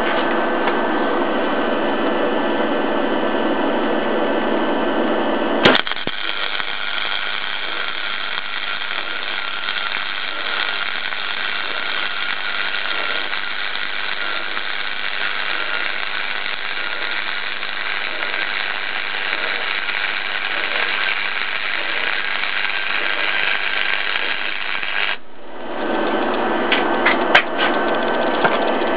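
A gasless flux-cored MIG welder's arc strikes with a sharp click about six seconds in and sizzles steadily for about twenty seconds, laying a fillet weld on 4 mm mild steel at full power, then cuts off suddenly. Before and after the arc, a steady mechanical running sound is heard, and a few clicks come near the end.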